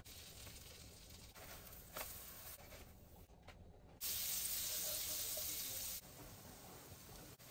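Butter sizzling in a hot nonstick frying pan, a loud hiss that starts and stops abruptly between about four and six seconds in. Then pancake batter frying in the melted butter with a quieter sizzle.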